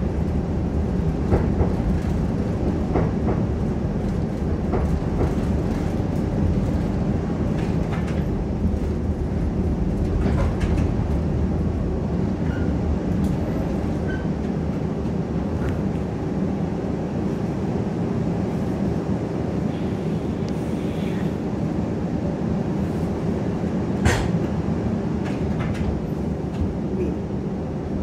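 A 1947 St. Louis Car Company PCC streetcar running along the track, heard from inside the car: a steady rolling rumble with scattered clicks and rattles, and one sharper knock near the end.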